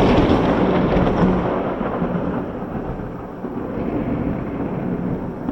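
Loud rolling thunder from a close lightning strike, rumbling and slowly dying away.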